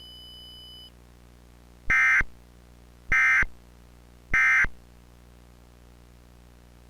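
Emergency Alert System end-of-message signal: three short, identical bursts of warbling digital data tones, about a second apart.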